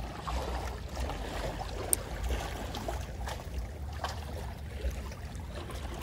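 Calm seawater lapping at the shore, with a steady low rumble and a few faint ticks.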